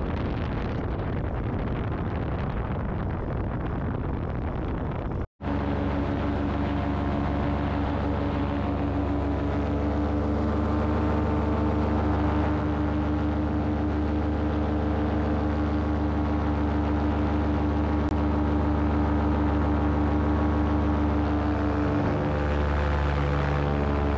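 Wind rushing over the microphone for about five seconds, then, after a sudden break, a paramotor's engine and propeller running at a steady drone.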